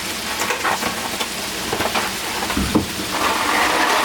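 Steady hiss of food cooking on the stovetop, with scattered light clicks and a single low knock about two and a half seconds in.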